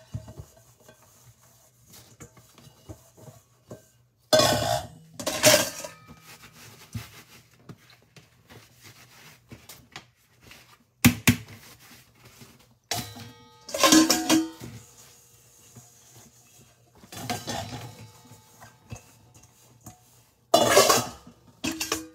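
Kitchenware being dried with a cloth towel at the sink: the towel rubbing a stainless steel bowl and a plastic colander, with several loud clatters and clinks a few seconds apart as the pieces are handled and set down.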